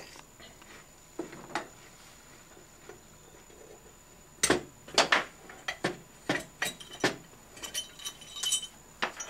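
Metal clinks and clicks of a flat steel flywheel puller plate and its bolts being handled and taken off a 23cc engine's flywheel. A couple of light clicks come first, then a quick run of sharper clinks from about halfway in, a few of them ringing briefly.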